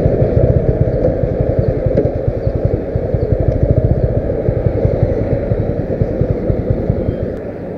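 Motorcycle engine running under way, a steady fast pulsing that eases off near the end.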